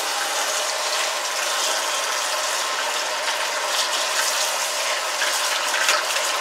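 Kitchen tap water running steadily into a pot of freshly boiled potatoes to cool them.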